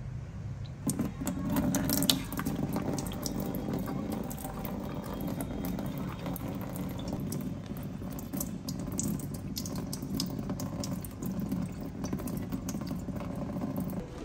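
Kitchen tap turned on about a second in, water running into a stainless steel sink and splashing over a small monkey's hands as they are rinsed.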